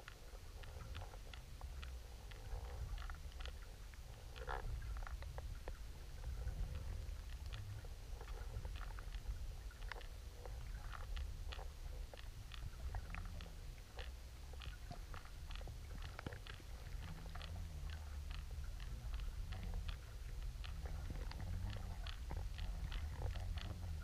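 Underwater audio from a camera moving with a trolled lure: a steady low rumble of water flowing past, with many faint, irregular clicks and ticks.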